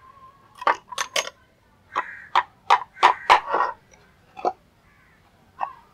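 An irregular run of about a dozen sharp clicks and knocks, most of them packed into the first half, with a rougher, rasping edge on some strokes.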